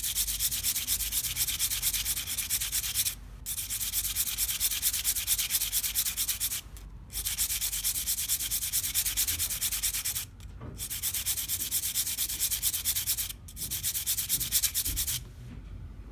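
Staedtler 2B pencil graphite being sanded to a needle point on a sandpaper block, the pencil twisted as it goes: a steady hissing rub in quick strokes, broken by four short pauses and stopping about a second before the end.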